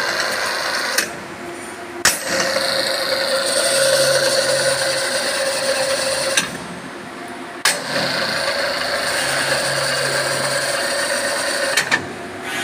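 Electric overhead-crane hoist motor with its solenoid brake, run in three bursts: a short one stopping about a second in, then two of about four seconds each, every start and stop marked by a sharp clack as the brake releases or grabs. The motor gives a steady whine while running; the newly fitted brake lining is being tested.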